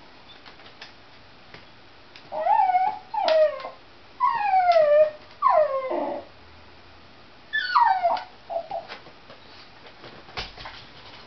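Small white terrier whining in excitement at a cat outside: five high, urgent whining cries, each sliding down in pitch, come close together between about two and eight seconds in. A single thump follows near the end.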